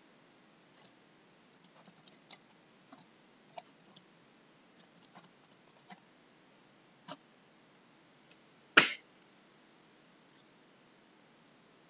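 Faint, uneven taps of typing on a computer keyboard, with a few scattered clicks, then one much louder knock just before nine seconds in.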